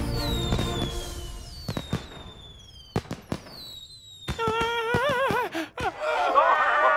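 Cartoon fireworks sound effects: several whistles falling in pitch, then sharp cracks and pops. Near the end, several voices break into cheering.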